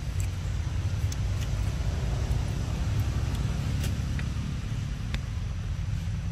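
Steady low outdoor rumble with a few faint, short ticks scattered through it.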